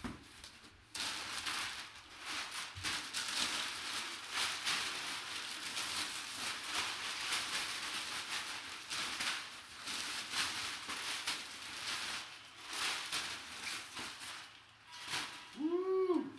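Packaging rustling and crinkling with many quick crackles as a memorabilia mystery box is opened and its wrapped contents are handled. A short vocal sound comes right at the end.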